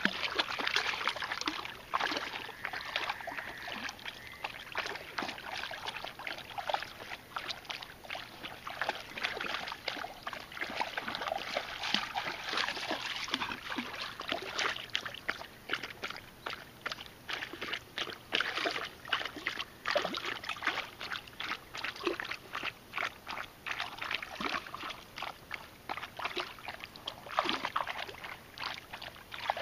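Weimaraner lapping river water, a long run of quick, wet laps and splashes, several a second.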